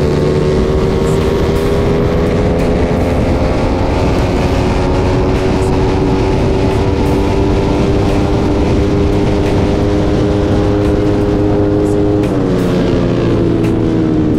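Onboard sound of a small drag-racing motorbike engine held at high revs down a straight, its pitch creeping slowly upward, with heavy wind rush on the microphone. Near the end the throttle is eased and the engine note drops.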